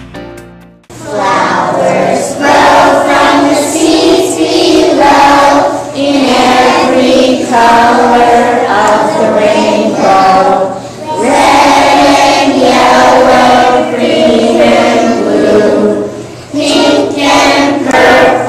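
A group of preschool children singing a song together, starting about a second in as a short stretch of music cuts off.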